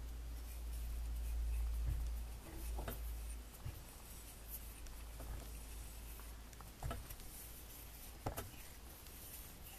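Faint clicks and scrapes of a spanner turning a nut on a threaded rod, drawing two cones together to flare the end of a copper gallow tube in a copper firebox. A low handling rumble runs through the first few seconds, and a few sharper clicks come later.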